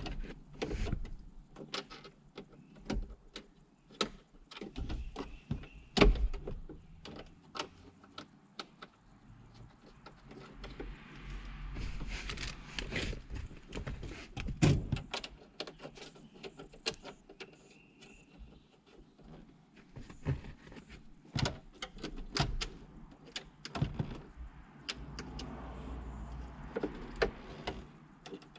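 Irregular clicks, knocks and rattles of plastic and metal dash parts being handled and fitted, as a double DIN head unit and its mounting bracket are set into a Jeep TJ dash opening, with a few louder thumps.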